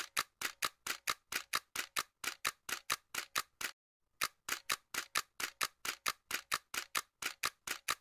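Ticking sound effect: faint, sharp, evenly spaced ticks at about four to five a second, stopping for about half a second near the middle and then resuming.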